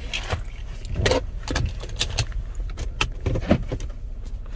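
Cabin noise of a 2011 GMC Terrain on the move: a low, steady road rumble with a string of light, irregular clicks and rattles.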